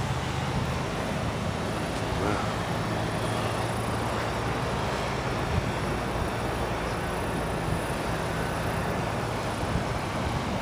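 Steady outdoor background noise: an even hiss over a low, steady hum that fades near the end.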